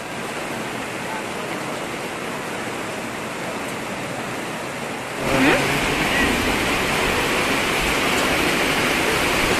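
Steady rain falling, an even hiss. It becomes louder and fuller after a cut about five seconds in.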